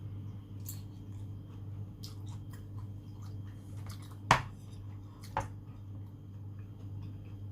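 Close-up chewing and wet mouth sounds from a person eating, with small clicks throughout and two sharper clicks about four and five seconds in, over a steady low hum.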